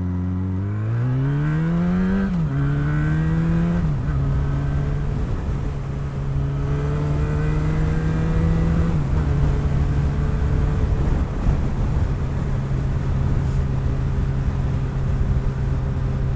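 Yamaha motorcycle engine pulling away, rising in pitch through two quick upshifts in the first four seconds, then cruising at an almost steady engine speed.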